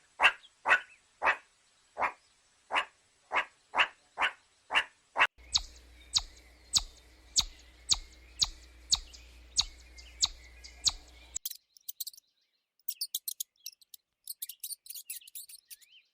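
Bird chirping: single short chirps repeated evenly about twice a second, then rapid, very high-pitched twittering in the last few seconds.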